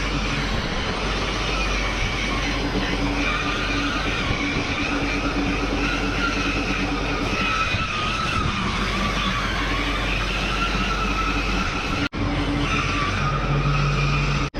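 Rotary polishing machine running steadily as it buffs car paint, a continuous whirring with a faint whine that wavers in pitch. The sound cuts out for an instant about twelve seconds in.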